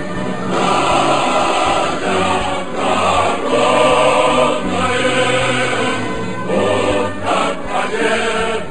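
Choral music: a choir of voices singing held chords that change every second or so.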